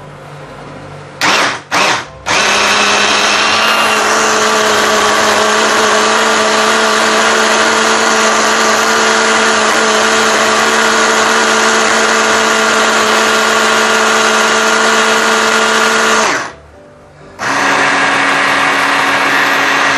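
Electric mini chopper motor pulsed in three short bursts, then run steadily with a whirring hum, grinding dried chilies, rehydrated dried shrimp and oil into a chili paste. It stops for about a second near the end and starts again at a slightly higher pitch.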